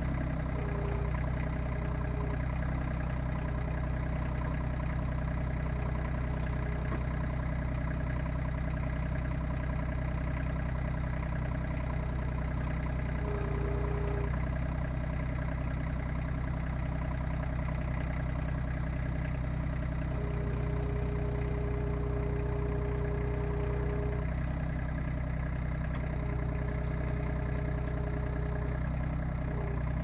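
RK25 compact tractor's diesel engine running steadily while its BH6.7 backhoe digs, with a higher whine that comes and goes several times.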